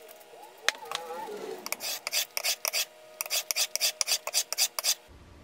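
Steel plane iron in a roller honing guide scraping back and forth over sandpaper on glass: quick, rasping sharpening strokes in two runs, honing the bevel to a shiny edge.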